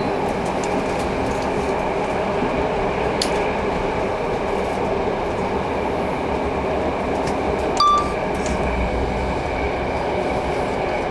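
Steady running noise of a moving passenger train heard from inside a carriage, with a few light clinks and one brief high-pitched tone about eight seconds in.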